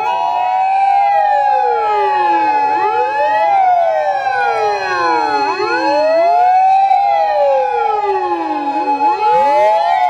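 Sirens of several Japanese emergency vehicles, ambulances and fire engines, sounding together as they drive past. Their wails overlap, each gliding down and back up every second or two, over one steady high tone.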